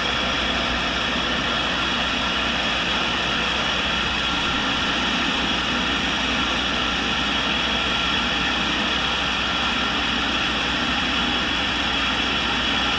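Tool and cutter grinder running steadily, its motor humming and grinding wheel spinning, with a constant drone that does not change.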